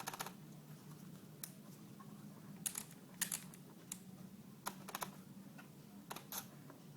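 Canon 50D DSLR's shutter and mirror clicking as several separate pictures are taken, short groups of sharp clicks every second or so, the freshly cleaned shutter button now firing the camera.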